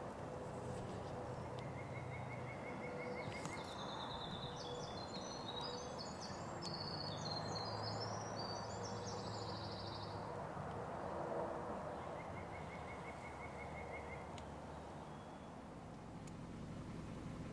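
Steady wind noise in spring woods, with songbirds: a long, jumbled high-pitched song from about four to ten seconds in, and a lower, even trill heard twice, near the start and again about twelve seconds in.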